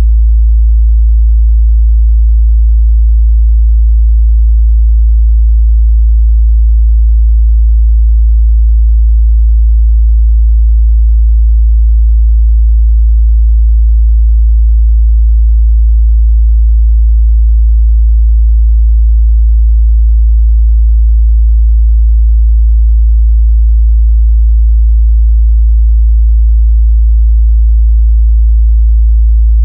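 Steady 55 Hz pure sine-wave test tone, a single low bass hum held at constant loudness without a break.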